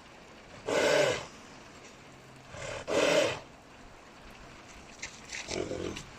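Two loud, short horse calls about two seconds apart, each lasting around half a second, from horses that are cross with each other; softer scattered sounds follow near the end.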